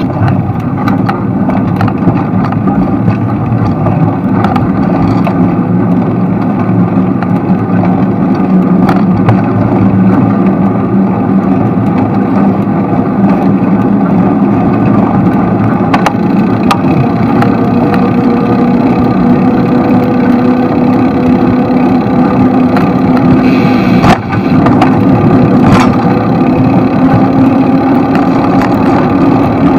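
Motor traffic running close by on a city street: a steady engine hum, with a faint higher tone slowly rising in pitch in the second half and scattered light clicks.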